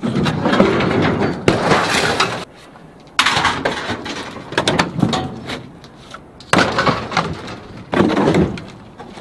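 Heavy, rusted scrap-metal pieces thrown by hand from a truck bed onto a scrap-metal pile: a string of crashing metal-on-metal impacts, one every second or two, some clattering on briefly.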